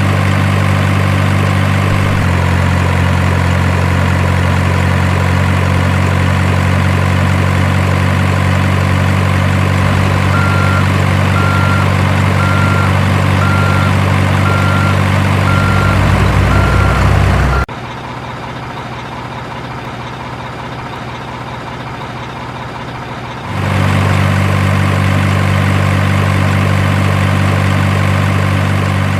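Simulated diesel engine idling from a radio-controlled truck's or excavator's sound module, a steady low hum, with a repeated beep, about one a second, sounding for several seconds midway. The engine sound cuts off abruptly past the middle and starts again about six seconds later.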